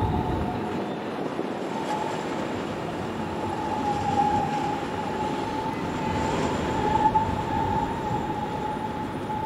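Alstom Citadis tram passing at low speed, with a steady high whine over the rumble of its running.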